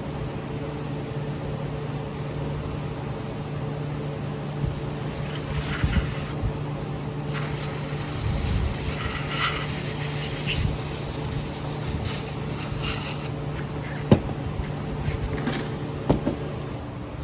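Pressurised spray hissing in bursts through the passages of a carburettor body as they are cleaned, followed near the end by a few sharp clicks of metal parts being handled.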